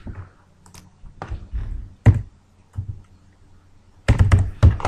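Computer keyboard keystrokes and mouse clicks while numbers are entered into a form: a few separate taps, then a quick run of keystrokes near the end.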